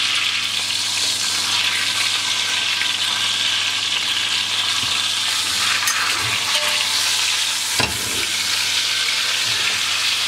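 Beef searing in a hot cast iron dish: a steady sizzle, with a few light knocks of a utensil moving the meat, the clearest about eight seconds in.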